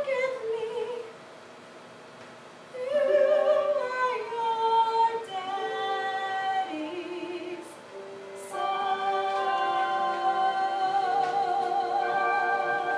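A woman sings a slow musical-theatre song solo, with vibrato. After a short pause about a second in, she sings several sustained phrases, then holds one long note through most of the last few seconds.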